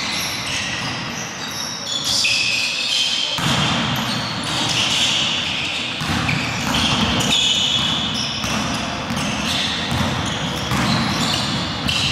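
Live basketball play on a hardwood court in a large echoing hall: the ball bouncing, many short high-pitched squeaks, and players' voices in the background.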